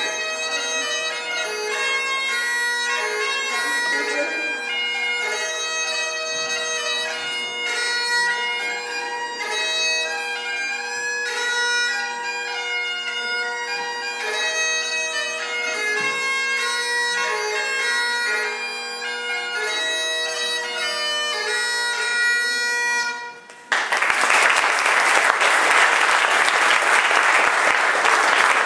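Great Highland bagpipe playing a tune over its steady drones. The piping stops near the end and an audience breaks into applause.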